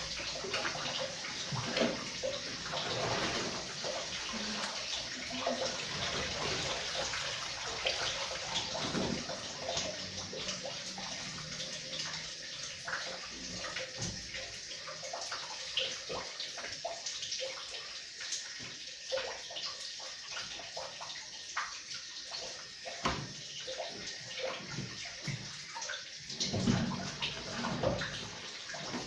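Water sloshing and splashing in a washing machine tub, with many small irregular splashes and drips, as wet curtains are handled in the wash water.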